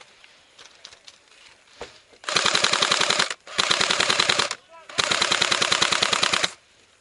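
Airsoft electric gun firing three long full-auto bursts close by, each a rapid, even rattle of shots lasting about a second or more, with short breaks between them.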